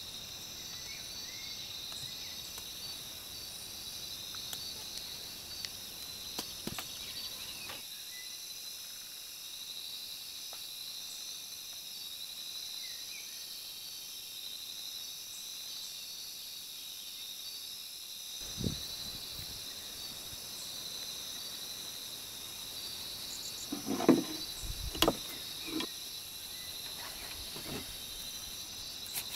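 Insects chirring steadily in the background. In the last third come a low thump and then a few sharp knocks, the loudest sounds here.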